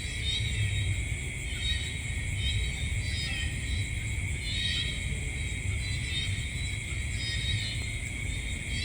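Night-time insect chorus: steady high-pitched trilling with short chirps repeating about once a second, over a constant low rumble.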